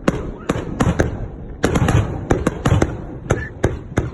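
Fireworks display: a rapid, irregular run of sharp bangs and cracks, more than a dozen in four seconds, coming thickest in a cluster about a second and a half in.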